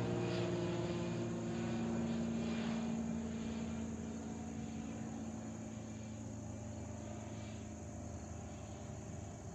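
Cessna 182 Skylane's single piston engine and propeller droning in a steady tone, fading as the plane flies away.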